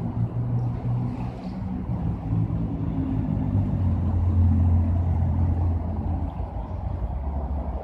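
An engine running with a low, steady hum; its pitch drops about three and a half seconds in and drops again near the end.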